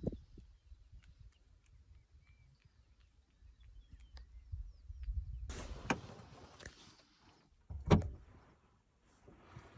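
Cheetah landing on the back of a car: one heavy thump on the car body about eight seconds in, after a couple of seconds of rustling.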